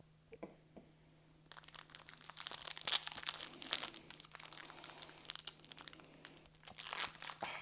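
Foil wrapper of a pack of baseball cards crinkling and tearing as it is opened. The crinkling starts about a second and a half in, after a few faint clicks.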